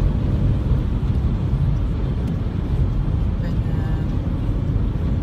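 Steady low rumble of road and engine noise inside a car's cabin while driving at motorway speed.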